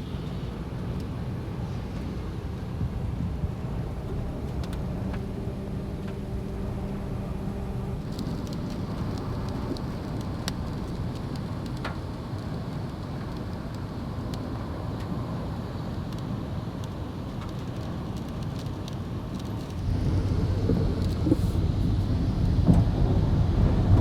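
Strong wind buffeting the microphone: a steady low rumble that grows louder about twenty seconds in.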